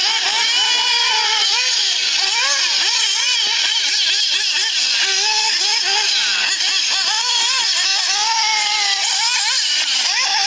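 Two nitro RC buggies racing, their small glow-fuel engines buzzing and rising and falling in pitch with each blip of the throttle.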